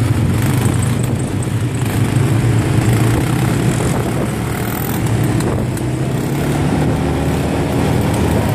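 ATV engines running steadily: the quad bike being ridden and others close by in the group.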